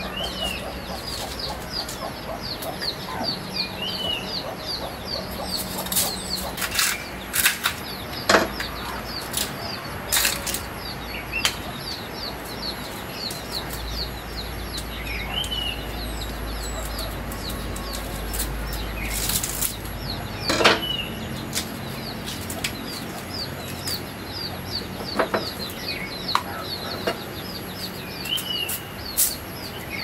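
A kitchen knife cutting and shaving the sheaths off fresh bamboo shoots, with sharp cuts and scrapes every couple of seconds. Birds chirp constantly in the background, with a quick run of high chirps and a short rising-and-falling call every few seconds.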